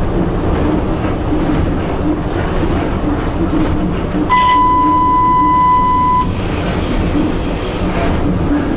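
EP1 electric locomotive running along the line, heard from inside the cab: a steady rumble of wheels and running gear on the rails. About four seconds in, a single steady high-pitched tone sounds for about two seconds, then stops.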